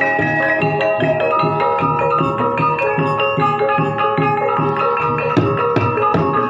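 Gamelan music: kettle gongs and metal-keyed percussion ringing in interlocking patterns over a steady beat on a kendang hand drum, about two strokes a second.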